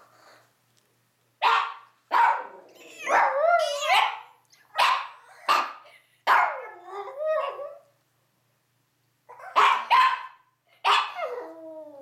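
Chihuahuas barking and yapping in short, sharp clusters, a few calls drawn out into wavering, howl-like yips. There is a pause of about a second and a half about two-thirds of the way through.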